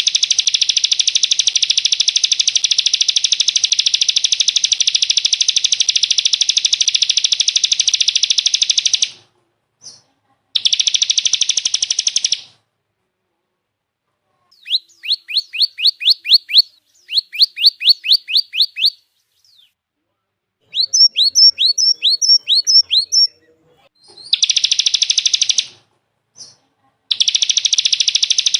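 Recorded songbird song: a long, very rapid, buzzy trill that breaks off about nine seconds in, returns briefly, then gives way to three quick runs of sharp downward-slurred notes, about six to eight per run, before the rapid trill resumes near the end.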